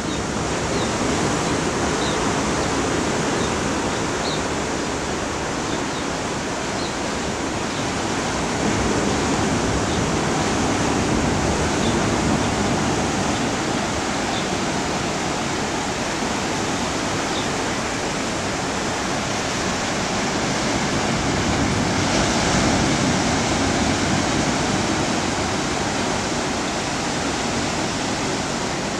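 Surf breaking and washing over a rocky lava shoreline: a steady rush of water that swells louder twice.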